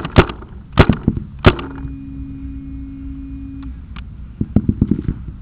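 Paintball markers firing: four sharp, loud shots in the first second and a half, then a quick string of quieter pops near the end. A steady low hum holds for about two seconds between them.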